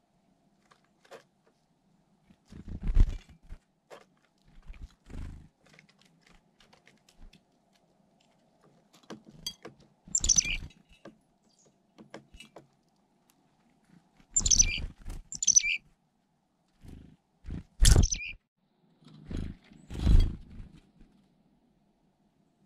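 Black-capped chickadees giving short, high chirping calls, about five in the second half, among dull low thumps and rustles, the loudest of them about three seconds in.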